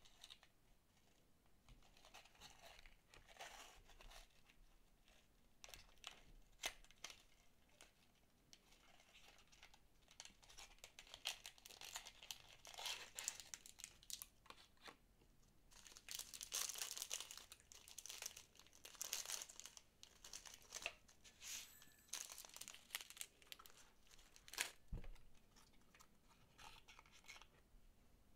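Quiet handling of a cardboard candy box and a clear plastic bag of small chocolate balls: the bag crinkles and rustles in irregular bursts, with a few sharp taps of the cardboard, the sharpest near the end.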